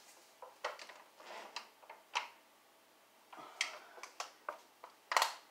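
A string of light clicks and knocks, about ten of them, from a plastic gallon jug and seedling pots being handled while tomato plants are watered.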